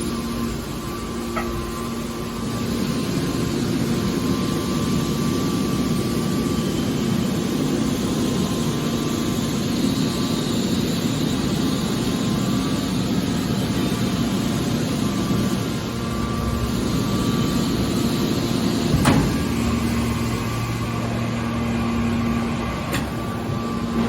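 Hydraulic scrap metal baler running: a steady hum from its pump motor over mechanical noise, with one sharp knock about 19 seconds in.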